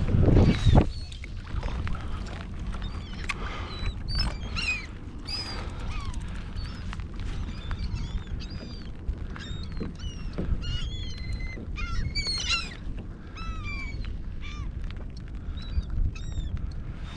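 A flock of seagulls calling over and over, many short rising-and-falling cries overlapping, as they work over baitfish pushed to the surface. A steady low rumble of wind and water runs underneath, with a louder rush in the first second.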